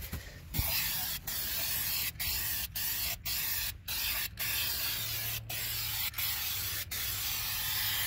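Aerosol can of silver aluminum spray paint hissing as it is sprayed onto a wheel rim. The spray starts about half a second in and goes in a run of short blasts, broken by brief pauses every half second to a second.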